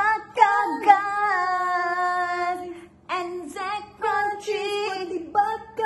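A woman singing: one long held note from about half a second in to nearly three seconds, then shorter sung phrases.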